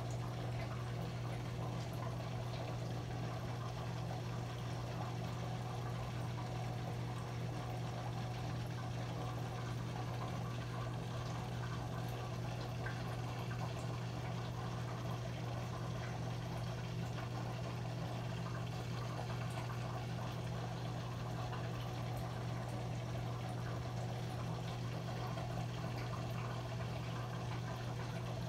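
Aquarium sponge filter running: steady bubbling and trickling water over a constant low hum.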